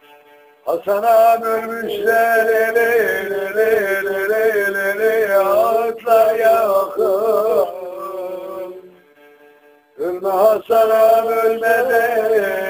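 A man singing long, held, wavering phrases as background music, breaking off about nine seconds in and starting again a second later.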